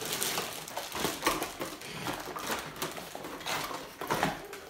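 Clear plastic bags of toy parts crinkling and rustling in irregular crackles as they are handled and rummaged through in a cardboard box.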